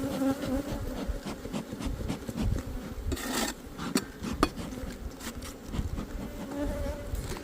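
Honeybees buzzing steadily around an open hive, with scattered knocks and a rasping scrape about three seconds in as the hive's boxes and frames are handled.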